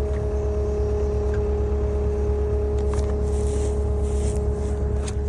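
Skid steer engine running steadily under a Turbo Mulcher TM60 forestry mulching head, with a deep rumble and a steady hydraulic whine from the spinning drum. A couple of faint clicks come near the middle and the end.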